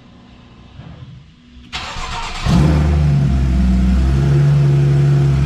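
Porsche engine being started: the starter cranks a little under two seconds in, the engine catches about half a second later with a loud burst, then settles into a steady idle through its non-original aftermarket exhaust.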